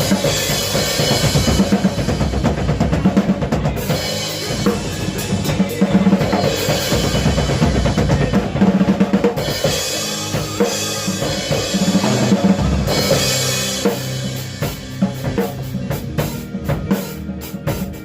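A 1973 Slingerland drum kit with new heads being played: a steady groove on bass drum and snare, with cymbal washes coming in every few seconds.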